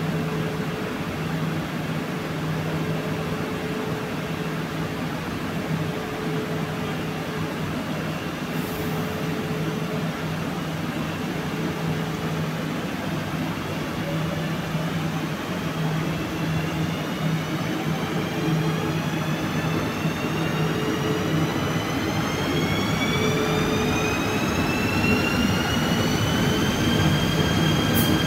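KTM ETS Platinum electric multiple unit pulling away from a standstill: a steady electrical hum, then from about halfway through the traction motor whine climbs in pitch, several tones together, as the train accelerates, and levels off near the end.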